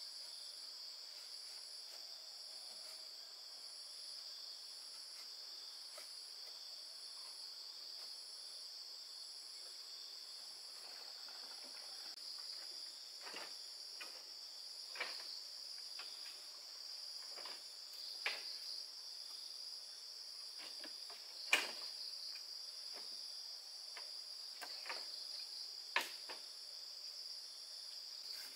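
A steady high-pitched chorus of insects, with a second, higher trill that pulses about once a second. From about halfway in come scattered sharp knocks or snaps, seven or so, the loudest about three-quarters of the way through.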